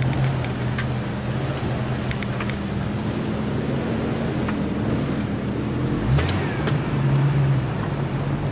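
Jeep Cherokee XJ's engine running at low speed over a rough dirt track, heard from inside the cabin, with scattered clicks and rattles. About six seconds in the engine note rises briefly.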